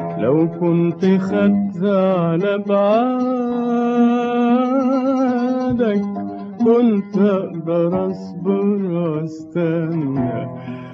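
A male voice singing a drawn-out melismatic line in maqam Kurd over oud accompaniment. It holds one long note with vibrato near the middle, then moves through shorter ornamented phrases.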